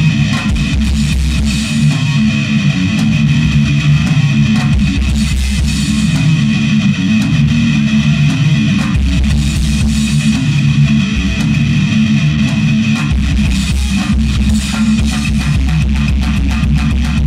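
Live rock band playing an instrumental passage: electric guitar, bass guitar and drum kit through a stage PA, loud and steady, with quick even drum hits in the last few seconds.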